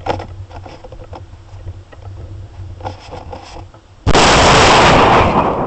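Portable air cannon firing at 100 psi, heard through a keychain video camera's microphone riding inside the caulking-tube projectile: faint rumble and small clicks in the dark barrel, then about four seconds in a sudden, overloading blast that holds for about a second and a half before easing into rushing air as the shell flies.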